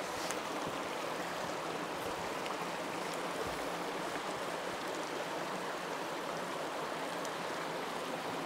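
Small mountain stream flowing over rocks and logs: a steady, even rush of water.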